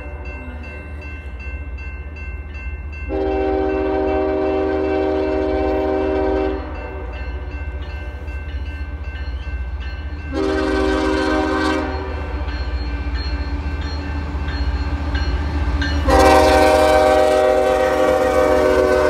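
BNSF freight locomotive's multi-chime air horn sounding the end of the grade-crossing signal: a long blast, a short one, then a long one that is still going as the lead units pass. Beneath it the crossing bell rings steadily with a constant low diesel rumble from the approaching train.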